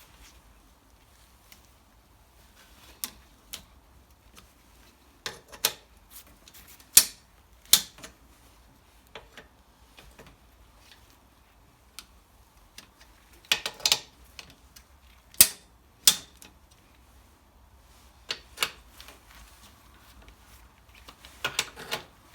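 Torque wrench and socket on the cylinder head bolts of a Briggs & Stratton 6 hp engine, tightening them to torque: scattered sharp metallic clicks, about a dozen, some in quick pairs or short clusters.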